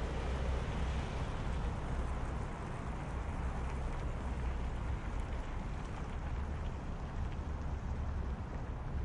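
City traffic hum with light traffic at a crossroads: a steady low rumble with a hiss over it, the hiss easing a little about two and a half seconds in.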